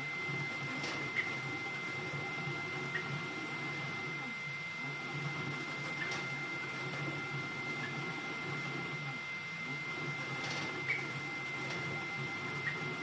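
Creality Ender-3 V3 3D printer running a high-speed print: its stepper motors whine in tones that rise and fall continuously as the head moves. A steady high tone sounds throughout, and a few small clicks come through.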